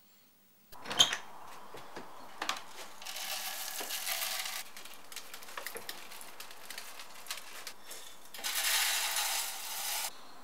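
Seed shaken out of a small metal frying pan, two spells of grainy, rattling hiss, with a sharp click about a second in.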